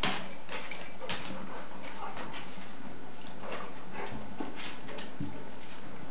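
Dogs whimpering in short, scattered sounds while tussling over a ball.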